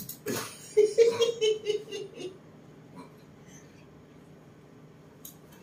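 A pig-tailed macaque gives a quick run of high-pitched pulsed calls for about a second and a half, starting about a second in, after a brief scuffle.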